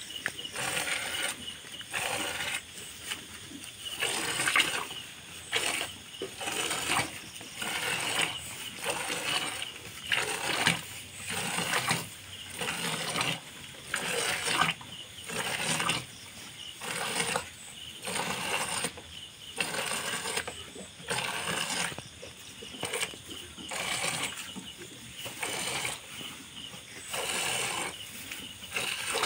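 Milk squirting from a cow's teats into a plastic bucket of frothy milk during hand milking. Each squeeze gives a short splashing squirt, in a steady rhythm of about one a second.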